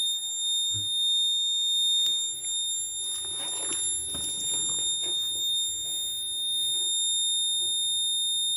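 Piezo buzzer alarm on a microcontroller project board sounding one continuous high-pitched tone, the warning that no ignition key is inserted. Handling rustle comes through about three to five seconds in.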